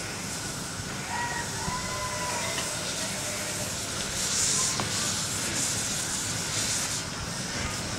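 Miniature steam locomotive hissing loudly with steam from about four to seven seconds in as it sets off with its passenger carriages.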